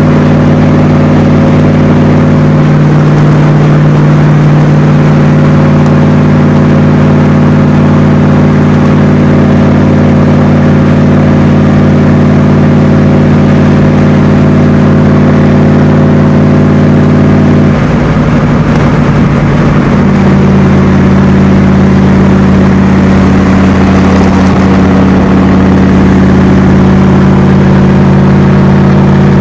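Cobra roadster's V8 engine running steadily at highway cruise, its pitch holding level over a haze of wind and road noise. A little past halfway the engine note breaks up briefly into a rougher stretch, then settles steady again.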